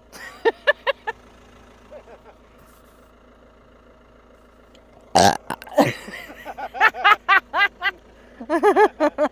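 A woman burps loudly about five seconds in, a single deep belch. Quick runs of short vocal bursts come shortly after the start and again near the end.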